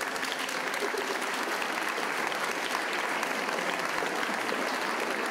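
Audience applauding, many hands clapping steadily after breaking out suddenly.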